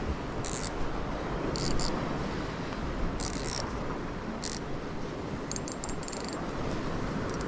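Steady wash of surf and wind along a rocky sea shore, with short, light mechanical clicks scattered through it and a quick run of them about two-thirds of the way in.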